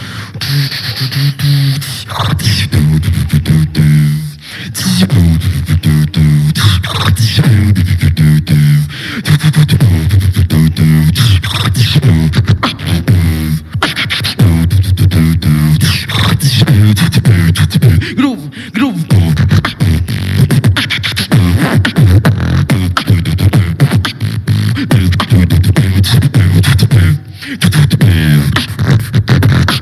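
Solo beatboxing into a cupped handheld microphone, amplified: a low pitched vocal bass line stepping between notes, driven by rapid sharp kicks, snares and clicks with no break.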